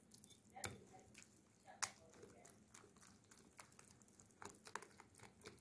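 Faint, irregular clicks and wet squelches of a wire whisk beating a thin vegetable batter in a bowl, flour being whisked in; a few sharper taps of the whisk against the bowl, the clearest about two-thirds of a second and nearly two seconds in.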